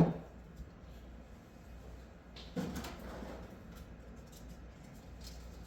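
A sharp knock of a tool or rifle part set down on a workbench, followed about two and a half seconds later by a softer scrape of handling and a few faint small clicks.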